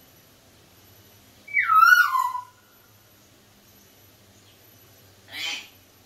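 Sun conures calling: a falling, whistle-like call about a second and a half in, the loudest sound, then a short scratchy squawk near the end.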